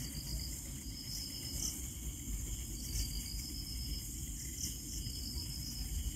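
Night insects such as crickets, a steady high-pitched chirring chorus with faint pulses every second or so, over a low rumbling background noise.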